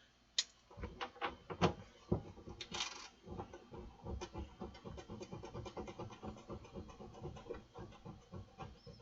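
Bolt being driven with a ratchet wrench to hold the amplifier's transformer in place: a few separate clicks, then from about three seconds in a fast, even ratchet clicking, several clicks a second.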